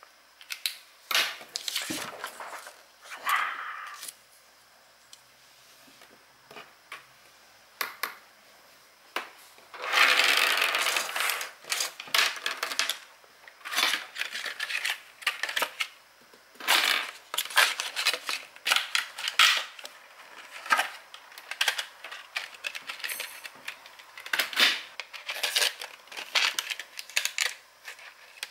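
Close-up handling sounds of stationery on a paper journal page: a run of clicks, taps and short scratchy strokes, with a longer scratchy sound lasting about two seconds around ten seconds in.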